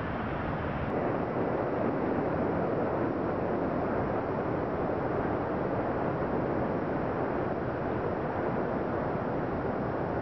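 Steady rushing wind noise on the microphone of a balloon payload camera as it rises, a little louder from about a second in.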